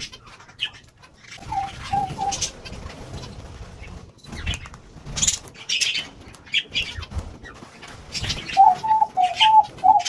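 Dove cooing: three short coos about one and a half seconds in, then a longer run of coos near the end. Sharp high chirps and brief wing flutters are scattered among them.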